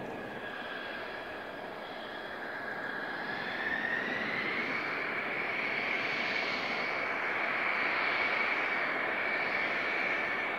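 General Electric F110 turbofan jet engines of taxiing Mitsubishi F-2 fighters: a steady high whine over rushing exhaust noise. About four seconds in, the whine rises in pitch and the sound grows louder.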